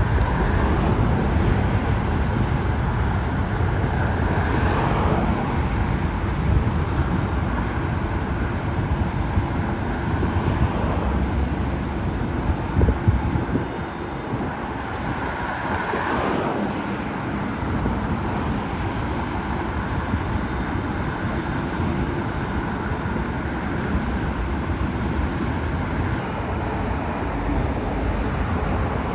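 Road traffic passing steadily, with a continuous rumble. Vehicles sweep by about five seconds in and again about sixteen seconds in.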